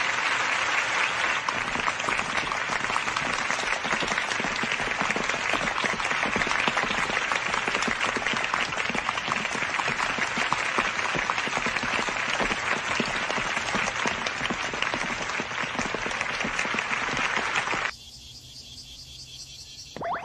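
A large crowd applauding, many hands clapping steadily together; the applause cuts off suddenly near the end.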